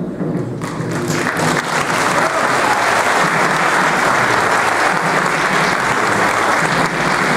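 Audience applauding, setting in about half a second in and building to a steady clapping, with quieter background music underneath.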